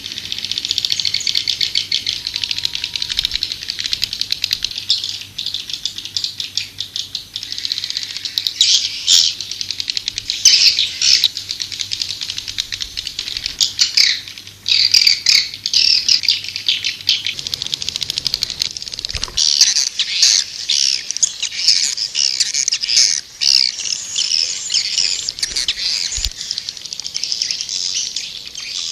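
White-nest swiftlet calls: a dense, continuous chatter of rapid chirps and rattling trills. This is a swiftlet lure call, the kind played to draw swiftlets into a swiftlet house.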